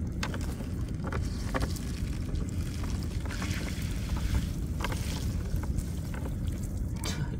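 A small fishing boat on the river with a steady low rumble, and scattered splashes and knocks as a gill net is hauled in hand over hand.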